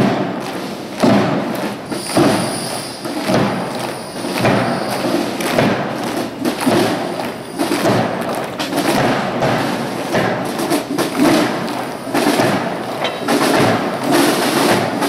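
Military massed band marching: a bass drum beats about once a second over the band's brass and drums.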